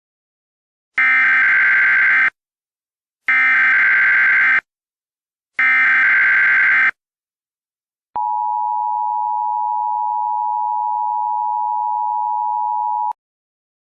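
Emergency Alert System header tones: three bursts of buzzing digital data, each a little over a second long with short gaps between, then the steady two-tone attention signal held for about five seconds before cutting off. Together they signal the start of an emergency alert broadcast.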